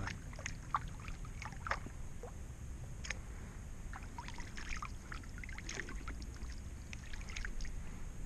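Small water splashes and lapping at the river's edge, many short irregular sounds over a steady low rumble.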